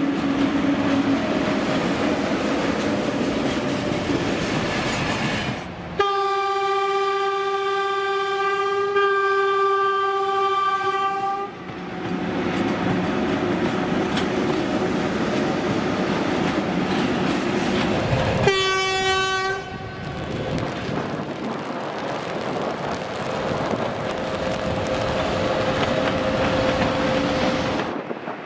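A train running along the rails, wheels clattering over the joints, with a long steady horn blast of about five seconds a quarter of the way in and a second, short blast about two-thirds of the way through.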